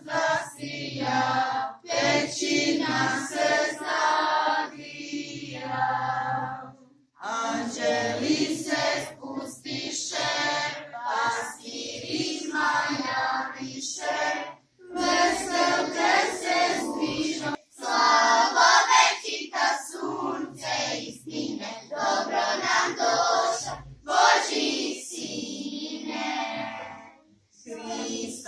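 A group of children and women singing a Serbian Christmas carol together, in long phrases with short breaks between them.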